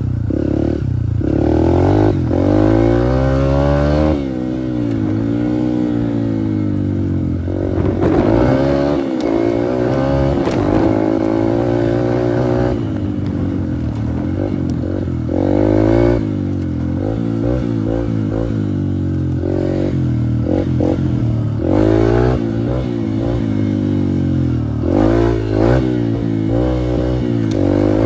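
Dirt bike engine revving up and easing off again and again while the bike is ridden, with several short throttle blips near the end.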